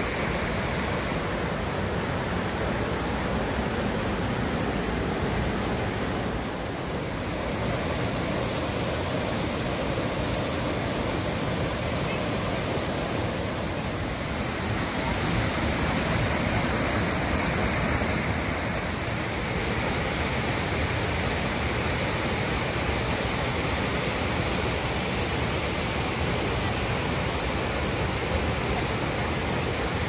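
Waterfall and the swollen stream below it: a steady rush of falling and fast-running water, with no let-up.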